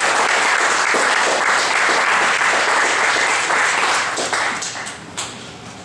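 Audience applauding, a dense steady clapping that dies away from about four seconds in.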